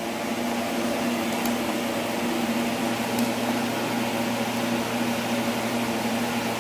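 Steady hum of a small electric motor running, with a low, even drone and a couple of faint ticks.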